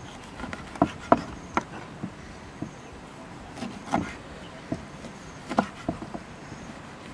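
A large knife cutting limes into wedges, its blade knocking on a wooden chopping board in a dozen or so sharp, irregularly spaced taps.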